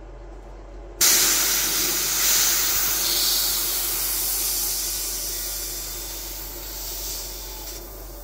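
Compressed air being drained out of a Wolf 300 bar air-gun compressor after a fill: a loud hiss that starts suddenly about a second in and slowly fades.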